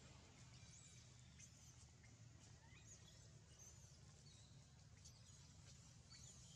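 Near silence: a faint steady low hum, with faint short high chirping calls every second or so that glide up or down.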